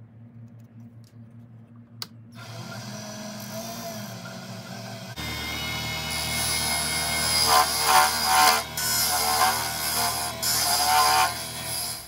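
Wood lathe switched on with a click and running, its motor hum stepping up about five seconds in, while a hand-held turning tool scrapes the spinning ebonite blank down to diameter in irregular bursts.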